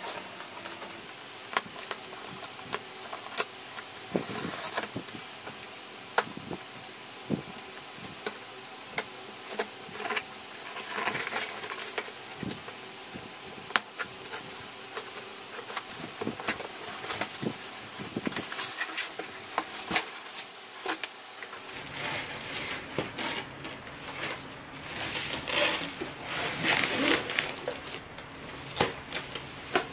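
Scissors cutting through packing tape and cardboard on a box, with sharp snips and scraping strokes. Later comes a stretch of rustling as plastic wrapping is handled and pulled off the packed item.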